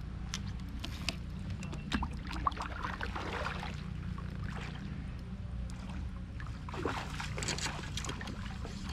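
Water sloshing and trickling around a kayak, with scattered light clicks and knocks over a steady low rumble.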